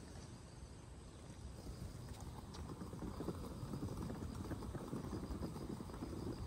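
Suitcase wheels rolling over brick paving: a low, rapid clattering rumble that grows steadily louder.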